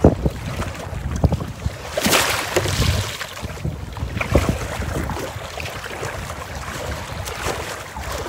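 Strong wind buffeting the microphone over choppy lake water slapping and splashing against a kayak's bow, with a louder rush about two seconds in.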